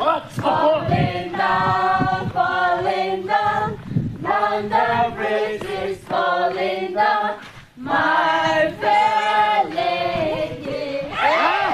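A group of voices singing a chant together in unison, phrase after phrase with short breaks, unaccompanied.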